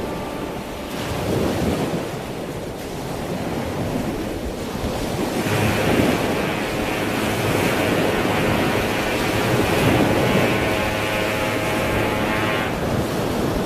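Rough sea water surging and rushing with wind, growing louder about five seconds in and easing off near the end.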